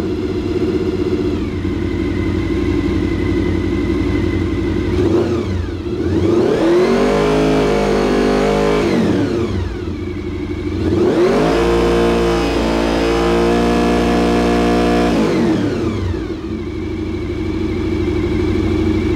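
1995 Honda VFR750's 90-degree V4 engine idling, then revved twice, about five and about ten seconds in. Each time the engine climbs, holds high for a few seconds and drops back to idle.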